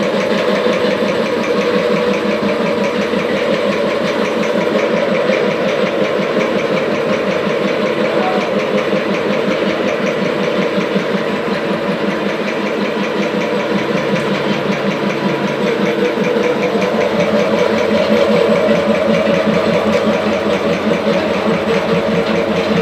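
Piston air compressor running with a rapid, even pulse, steady throughout. It is the compressor that the title reports as having a problem.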